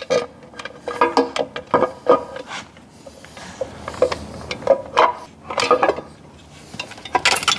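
Irregular metallic clinks and knocks as a timing cover is worked onto an AMG 6.2-litre V8 engine block over its timing chains. Some of the clinks ring briefly.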